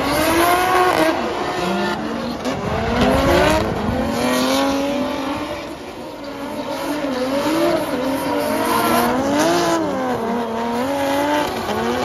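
Toyota 2JZ inline-six in a swapped BMW E36 revving up and down under throttle while drifting, its pitch rising and falling again and again, with tyres screeching and sliding on the tarmac.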